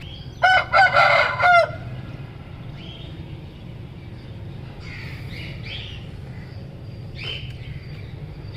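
A rooster crows once, a loud call of four linked notes lasting just over a second, followed by scattered faint chirps from budgies.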